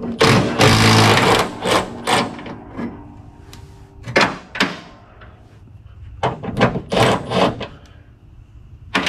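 Hand tools working on a car's hood hinge bolts to take the hood off. It opens with a loud scraping rush about a second long, followed by a series of separate sharp metallic clicks and knocks, singly and in small clusters.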